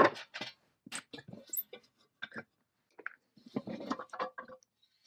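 Cast-iron case of an antique Babcock milk-fat tester being handled. A sharp metal knock at the start, scattered knocks and scrapes, then a quick cluster of knocks and scrapes near the end as the hinged top half of the case is swung open.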